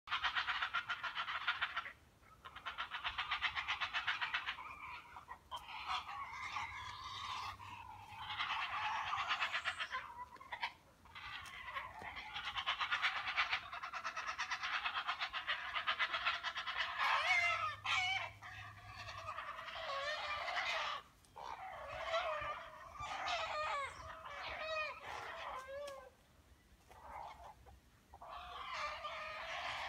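Blue heron nestlings begging noisily for food while being fed: rapid, clattering chatter in bouts of a few seconds, broken by short pauses, with an occasional rising squawk.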